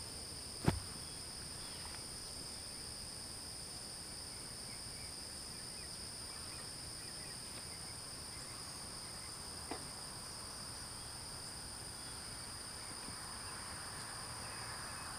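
Steady chorus of field insects, two constant high-pitched buzzing tones that hold without a break. A single sharp knock sounds about a second in, and a fainter one near ten seconds.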